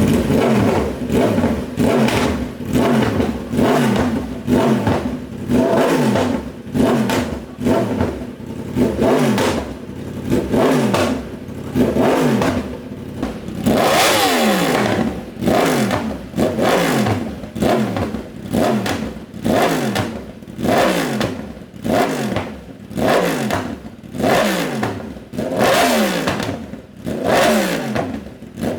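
Yamaha R1 inline-four engine revved over and over through a newly fitted titanium Racefit half-system exhaust: quick throttle blips about once a second, each falling away with sharp crackles.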